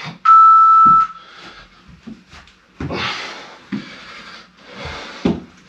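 A workout interval timer gives one loud, steady beep lasting under a second, marking the start of an interval. A man then breathes hard from the exercise, with three or so heavy exhales over the next few seconds.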